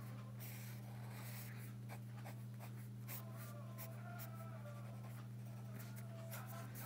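Pen strokes scratching on sketchbook paper, short and irregular as a drawing is sketched, over a steady low hum.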